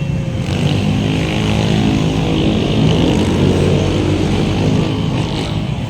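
Motorcycle engine of a passenger tricycle running under way, heard from the passenger seat. It runs at a steady pitch, loudest around the middle, over a hiss of wind and road noise.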